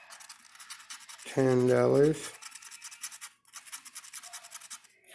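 Scratching the latex coating off an instant lottery scratch-off ticket: quick repeated rasping strokes, with one spoken word about a second and a half in.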